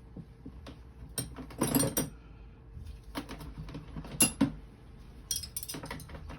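Metal hand tools clinking and clattering against one another as they are picked up and handled, in short uneven bursts, the loudest about two seconds in, with a single sharp strike about four seconds in.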